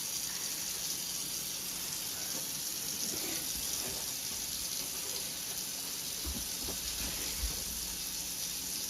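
Delta kitchen faucet running steadily into a quartz sink, its first run on the newly installed plumbing.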